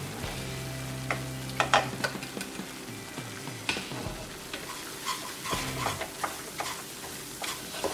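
Wooden spatula stirring and scraping through masala paste frying in oil in a nonstick pan, with a soft sizzle. Sharp scrapes and taps against the pan come every second or two as spice powders are mixed into the frying masala.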